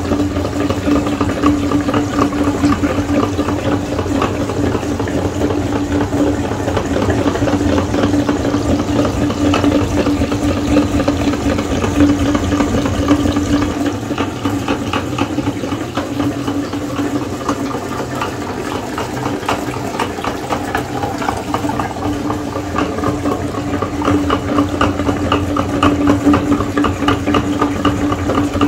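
Wet squelching and gurgling of jelly being forced through a hand-cranked meat grinder's perforated plate, over a steady low hum. It eases off for a while in the middle.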